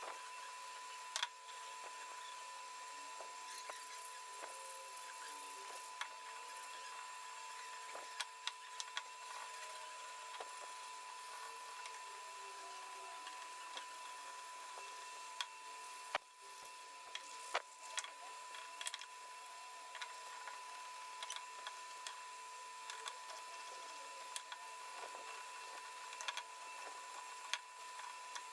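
Faint steady hiss with a thin, steady high hum, broken by scattered light clicks and taps from handling work pieces and tools.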